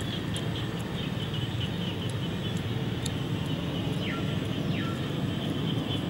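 Outdoor background: a steady low rumble with a faint, rapid high chirping pulse, about four a second, and two short falling whistles about two-thirds of the way through.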